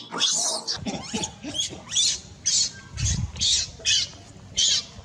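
Baby monkey giving short, high-pitched distress cries over and over, about two a second.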